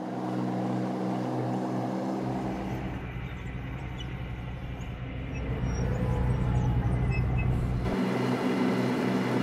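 Engine and running noise of M113-type tracked armored personnel carriers driving: a steady drone, with a deeper low rumble from about two seconds in until about eight seconds in.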